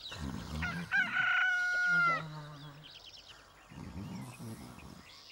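A rooster crowing once, about a second in: one long held call that drops in pitch at the end, marking daybreak. Faint short high chirps follow.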